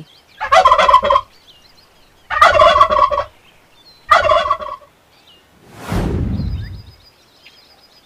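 Domestic turkey tom gobbling three times in quick succession, over faint background bird chirps. A falling whoosh follows about six seconds in.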